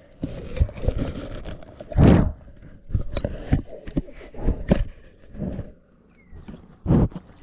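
Close-up handling noise of a GoPro camera being chewed and licked in a lioness's mouth: irregular knocks, bumps and scrapes against the housing, with a loud low burst about two seconds in.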